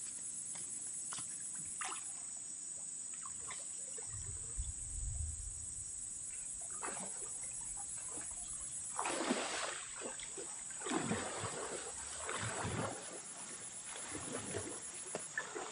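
Pond water sloshing and splashing as men wade chest-deep hauling a fishing net, with a cluster of swishes in the second half. A steady high insect drone runs underneath.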